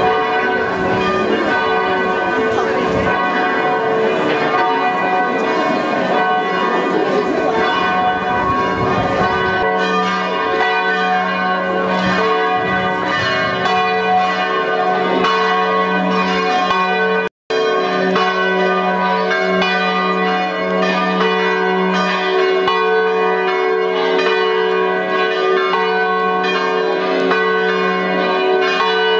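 Church bells ringing a continuous peal, many overlapping strikes with long-lingering tones. In the first third there is added shuffling noise beneath the bells, and the sound cuts out for an instant a little past halfway.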